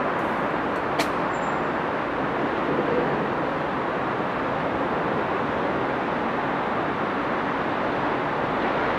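Steady urban road-traffic noise, with one sharp click about a second in.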